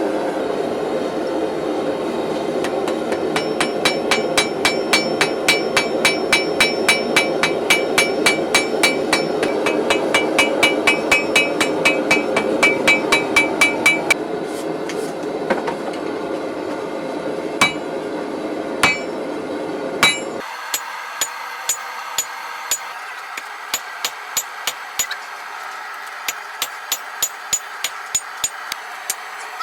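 Hammer blows on steel at an anvil, forging a san mai blade: a long run of sharp, ringing strikes about two to three a second. A steady rushing noise runs underneath and cuts off suddenly about two-thirds of the way through, after which lighter, sparser strikes continue.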